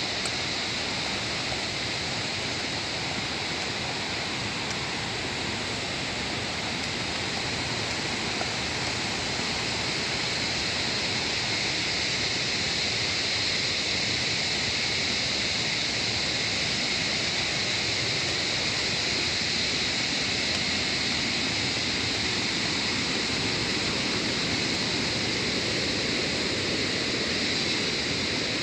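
Small waterfall and stream, a steady rush of falling water that grows a little louder about a third of the way through.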